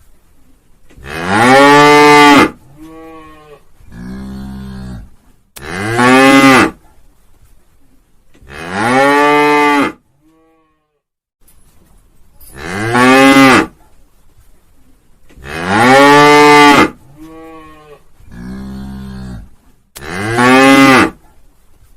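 A cow mooing again and again: loud moos about a second long that rise and then fall in pitch, some followed by two shorter, quieter moos. There is a brief silence near the middle, then the same sequence of moos repeats.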